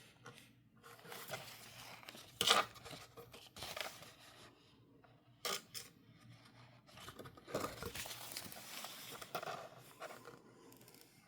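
Packaging of tapes and stickers being handled and opened: intermittent rustling and crinkling, with two sharp clicks about two and a half and five and a half seconds in.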